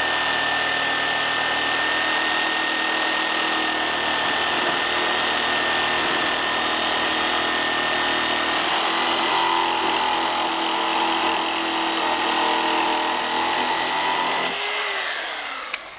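Corded hand-held electric saw running steadily as it cuts through wood, then switched off about a second and a half before the end, its whine falling in pitch as the motor spins down.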